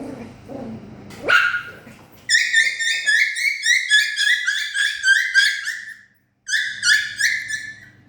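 Poodle puppy giving one sharp yelp, then a rapid string of high-pitched yips, about five a second. They break off briefly and then start again for a few more.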